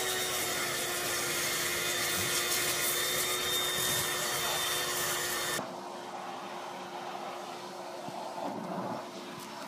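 Vacuum cleaner running steadily with a constant whine. About five and a half seconds in, the sound cuts abruptly to a quieter, duller vacuum running.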